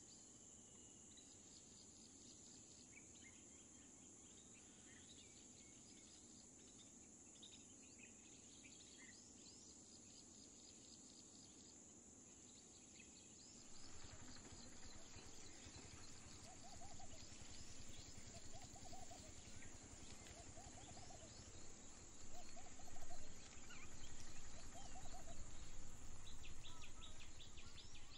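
Rural field ambience: a steady high drone of insects, with scattered small bird chirps. About halfway through the background grows louder, and a bird calls a short phrase again and again, roughly every two seconds.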